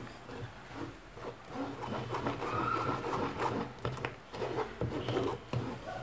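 Blended apple and lemon juice being strained through a sieve: irregular scraping and tapping as a spoon works the pulp, with a low steady hum underneath.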